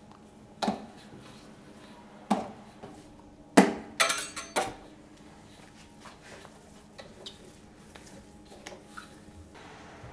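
Stainless-steel spiral-mixer bowl knocked and clanked as pizza dough is pulled out of it by hand. A handful of sharp metallic knocks with a short ring, the loudest cluster about three and a half to four and a half seconds in, then only faint small taps.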